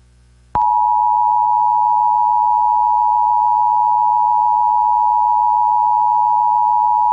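Emergency Alert System attention signal: a steady, loud two-tone alert tone starting about half a second in and held unbroken. It announces the spoken emergency warning that follows.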